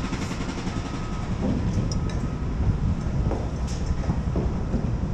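A steady low rumbling noise with light knocks about every half second to a second, as of footsteps on a wooden deck while walking.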